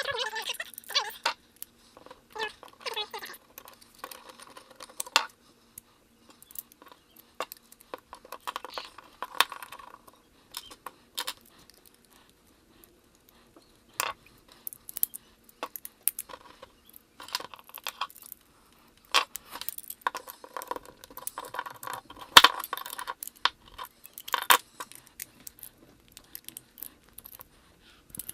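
Small bolts, washers and plastic mounting-base parts clicking and clattering as they are handled and fastened together, in irregular sharp clicks and short rattles with quiet gaps between.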